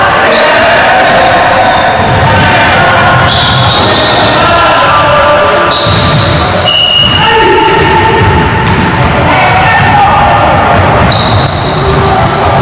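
Live sound of a pickup basketball game in an echoing gym: a basketball bouncing on the hardwood court, players' voices, and short high sneaker squeaks.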